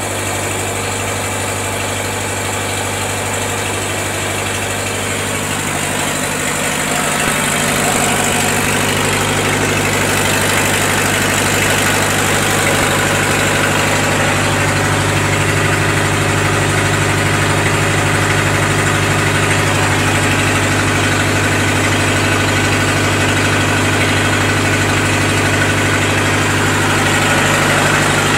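Lister HA4 four-cylinder diesel generator set running steadily, freshly started. It gets a little louder about seven seconds in.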